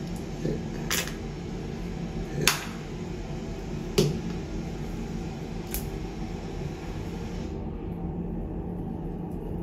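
A few short sharp clicks over a steady low hum, the loudest about two and a half seconds in: handling noise as face scrub is squeezed from a flip-top tube into a palm and rubbed on.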